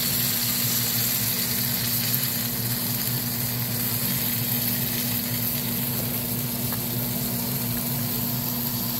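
Butter melting and sizzling in a hot cast iron skillet as tongs push it around, over a steady low hum.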